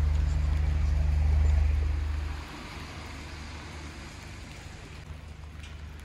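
Low steady rumble of a moving vehicle, with a fainter hiss above it; the rumble drops away about two and a half seconds in, leaving a quieter hiss.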